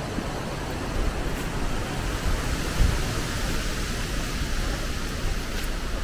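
Wind gusting through leafy forest trees: a steady rushing hiss of moving leaves over an uneven low rumble of wind buffeting the microphone.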